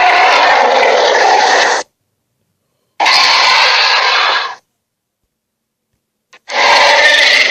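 Cartoon sea monster sound effect, played as three loud, harsh bursts of about one to two seconds each with dead silence between them.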